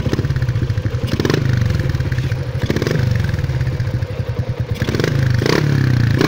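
Yamaha LC135 (Jupiter MX135) motorcycle running an FZ150 single-cylinder four-stroke engine block through an SHM aftermarket exhaust: idling and revved in several short throttle blips, each falling back toward idle, getting louder toward the end.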